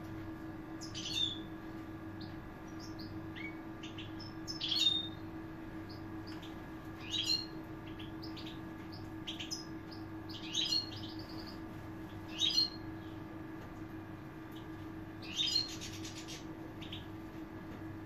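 A flock of European goldfinches chirping: six louder bursts of twittering calls a few seconds apart, with soft high chirps in between, over a steady low hum.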